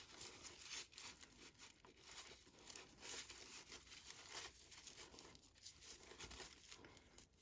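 Faint, irregular crinkling rustle of raffia yarn drawn through the stitches by a crochet hook, with small scattered ticks as the stiff strands are handled.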